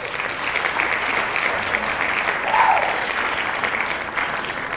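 Audience applauding after a live rock band's number, a dense patter of clapping that dies down slightly near the end.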